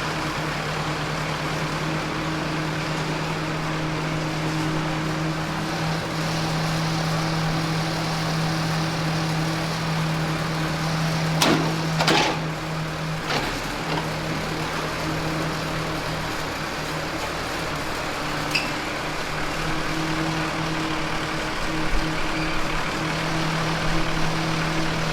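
Tractor engine idling steadily, with a few sharp knocks a little past halfway through.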